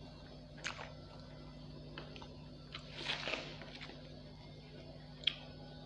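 Plates being shifted across a tabletop, with spoons clicking against them: a few sharp clicks and a short scraping rush about three seconds in, over a faint steady low hum.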